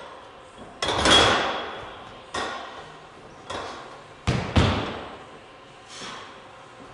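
A loaded barbell knocking and clanking against the squat-stand hooks as a lifter settles under it and lifts it off. About six sharp metallic knocks, each ringing on briefly. The loudest comes about a second in, with a close pair just past four seconds.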